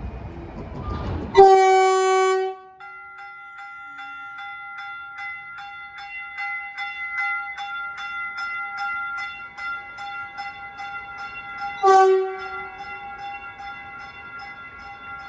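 Caltrain Stadler KISS electric train's horn sounding one blast of about a second, then a bell ringing steadily about three times a second. A second, shorter horn blast comes near the end.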